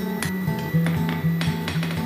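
Background guitar music with held low notes, with several sharp metallic hammer blows on steel at an anvil heard through it.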